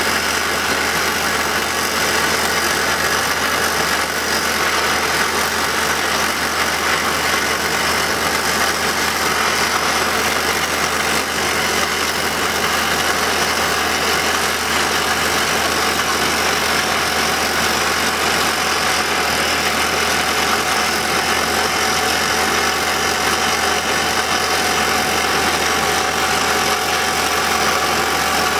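Kaishan KL511 top-hammer hydraulic drill rig drilling a blast hole in rock: its Montabert HC170 hydraulic rock drill hammering the drill string, with the rig's power pack running. Loud and steady throughout.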